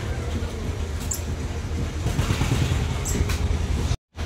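An engine running steadily with a low, even hum, with a couple of faint light clicks.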